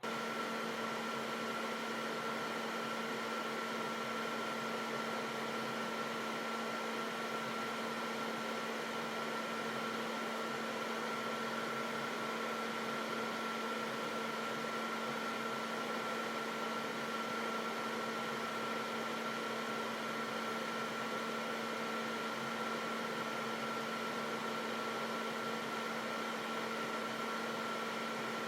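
Steady, even hum and hiss of a small machine or fan, a few constant tones over a noise haze, with no change in pitch or level.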